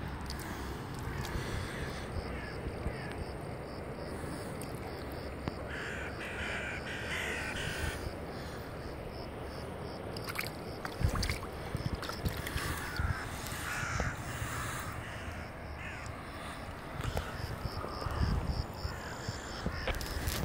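Crows cawing repeatedly, several harsh calls in runs, over steady outdoor background noise, with a few low bumps on the microphone, the loudest about halfway through.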